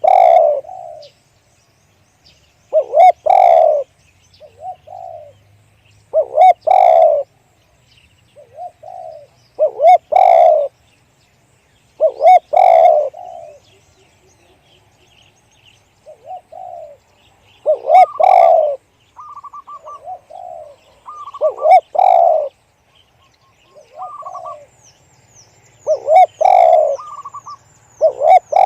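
Spotted dove cooing: a loud, deep, multi-note coo phrase repeated about eight times, one every three to four seconds. Faint high chirps from another bird come in near the end.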